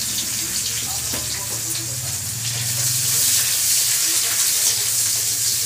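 Chopped onion sizzling steadily in hot oil in a steel kadai, stirred now and then with a metal spatula, over a steady low hum.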